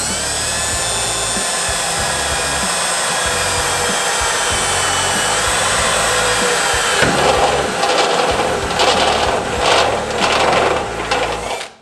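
Milwaukee cordless drill with a step bit drilling through the steel of a hood. The motor whines steadily at first, then about seven seconds in the cutting turns rougher and uneven as the bit bites into the metal, and it stops abruptly near the end.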